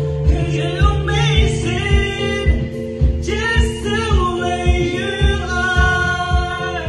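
A man singing karaoke over a backing track with a steady beat, holding a long note near the end.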